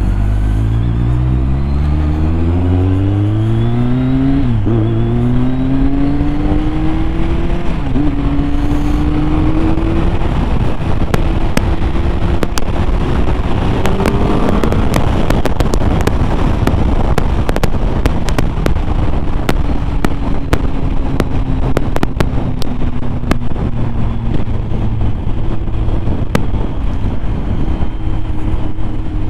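BMW K1200R Sport's inline-four engine accelerating through the gears: its pitch climbs, drops at an upshift about four and a half seconds in and again about eight seconds in, then settles to a steady cruise. Wind buffeting the microphone is heavy once the bike is up to speed.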